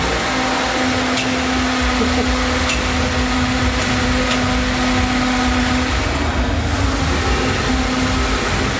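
A steady mechanical hum with a low held tone running under it, and a few faint clicks.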